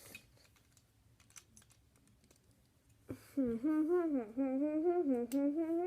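A boy humming a wavering tune for about three seconds, starting about three seconds in. Before that come faint scattered clicks of Lego pieces being handled.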